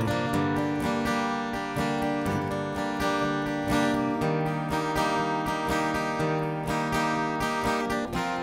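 Acoustic guitar strumming an instrumental break between sung choruses of a gospel song, over long held accompanying notes.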